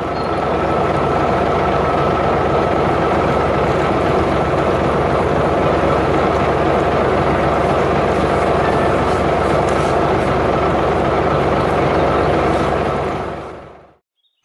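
A vehicle engine running steadily with a constant whine over it, fading out to silence near the end.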